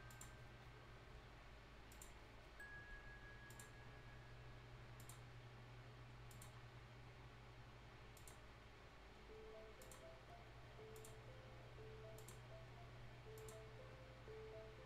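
Computer mouse clicking at an uneven pace, roughly one click a second, as points of a curve are placed one by one, over a low steady hum. Faint background music with short plinking notes comes in about nine seconds in.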